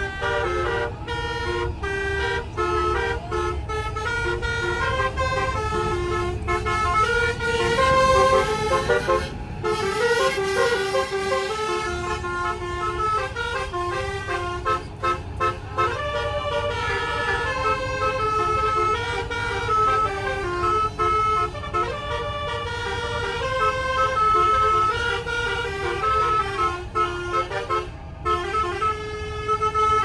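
Tour bus's multi-tone telolet air horn playing a tune, note after note, over the steady low rumble of the bus engine and road.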